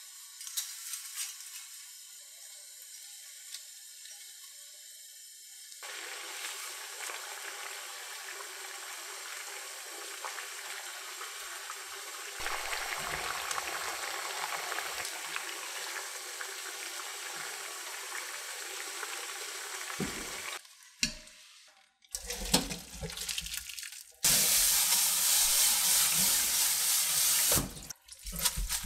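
Water boiling in a frying pan, growing more vigorous about six seconds in, with glass noodles turned in it with tongs. After a short break comes clattering, then a kitchen tap running hard into a stainless steel sink over the noodles in a colander; this running tap is the loudest part, near the end.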